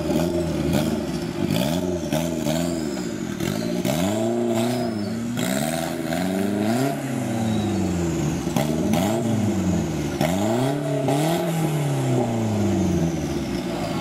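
Off-road 4x4's engine revving up and down over and over, each surge lasting a second or two, as the vehicle works to climb out of a deep mud rut. Scattered knocks and clatter run through the revving.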